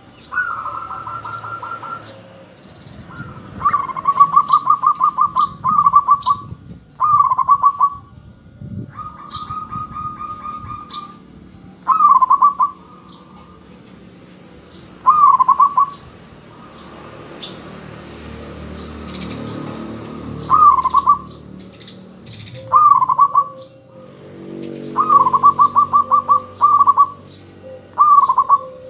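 Zebra dove (perkutut) singing: about a dozen short phrases of rapid, rolling coo notes, each lasting a second or two, with pauses between them.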